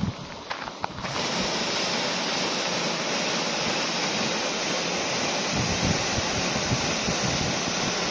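Footsteps on a gravel track for about a second, then the steady rush of a small waterfall plunging into a rock pool, with some wind buffeting the microphone.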